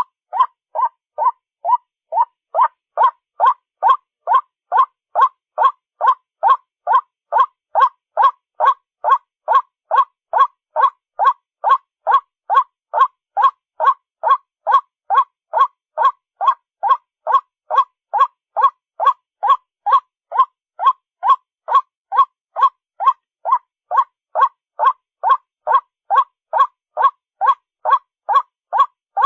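White-breasted waterhen calls, a short 'ruak' note repeated about twice a second in an even, unbroken series, played from a small speaker as a bird lure.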